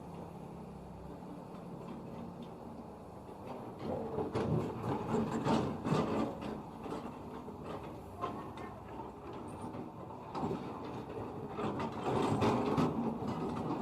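Caterpillar 320D2 hydraulic excavator's diesel engine running, with bursts of gravel scraping and rattling as its bucket spreads road aggregate. The scraping comes in from about four seconds in and again near the end.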